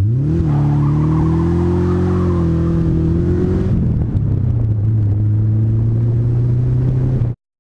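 Ford Capri engine through a custom stainless steel exhaust, heard close to the tailpipe as the car pulls away: the revs rise sharply at the start and hold, climbing slowly. At about three and a half seconds the note drops to a lower, steady drone, and the sound cuts off abruptly near the end.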